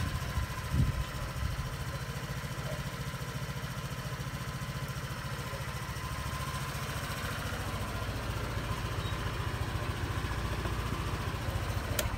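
Honda PCX125 scooter's single-cylinder four-stroke engine idling steadily with an even, fast low pulse.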